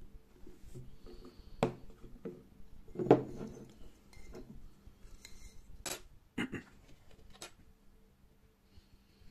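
A few short knocks and clinks from a small glass jar and plastic bottle caps being handled on a tabletop, the loudest about three seconds in.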